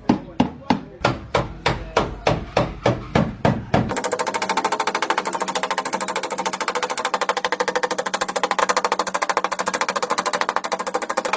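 Hammer tapping a dented car body panel in an even rhythm, about four strikes a second, during dent repair. About four seconds in this gives way to a steady, very rapid mechanical rattle that lasts until near the end.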